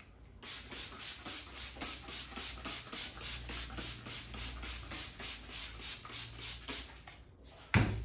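A plastic bottle shaken over a customer's head in a quick, even series of hissing strokes, about four a second. Near the end comes one sharp knock as the bottle is set down on a wooden shelf.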